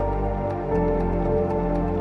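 Background music: sustained chords over a low bass that changes note just under a second in, with light ticking percussion.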